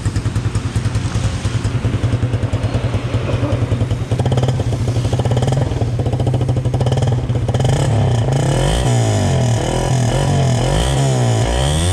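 Suzuki Raider 150 Fi single-cylinder four-stroke engine running through a stock Raider 150 carb muffler on a new elbow. It idles with an even, fast pulse, settles a little higher from about four seconds in, then is blipped in a quick series of revs over the last four seconds.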